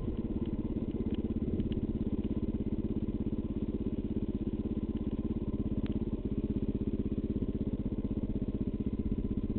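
Rally motorcycle engine running steadily at low revs with an even, rapid pulse.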